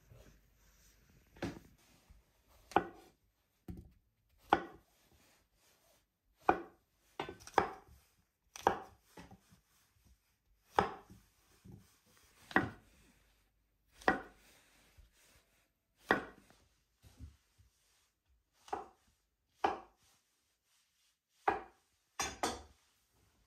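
Kitchen knife chopping food against a wooden cutting board: single slow, deliberate cuts landing every second or two, in an uneven rhythm.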